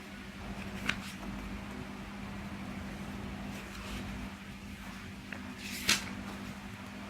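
Packaging being handled by hand: a short click about a second in and a louder, sharp rustle-like snap near six seconds, over a steady low hum.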